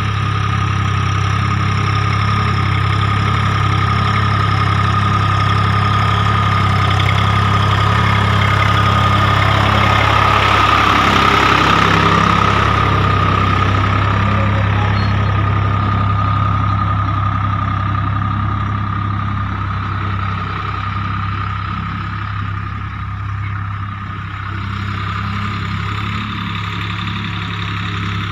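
Swaraj tractor's diesel engine running steadily as it pulls a laser land leveler over the field, a low drone with a steady high whine above it, loudest about midway through.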